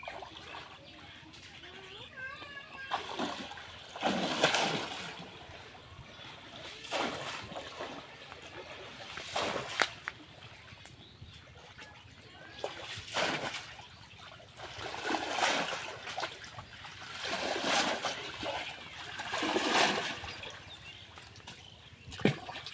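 Pond water splashing and sloshing in repeated bursts every couple of seconds, with a few sharp slaps, as a man wades and gropes with his hands under the surface feeling for fish.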